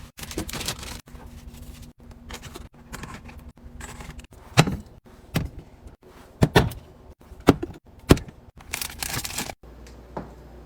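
Food containers and packages being handled and set down while restocking a fridge: a string of sharp knocks and clicks, with short bits of rustling. Near the end it changes abruptly to a faint steady hum.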